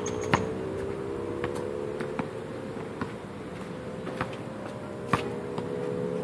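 A steady buzzing hum with a slightly wavering pitch, and faint sharp knocks about once a second, typical of a basketball bouncing on the outdoor concrete court.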